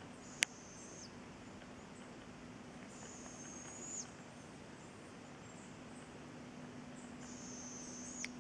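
Juvenile northern spotted owl giving its high, drawn-out begging call three times, each call just under a second long and turning up slightly at its end. Two sharp clicks, about half a second in and near the end, are the loudest sounds.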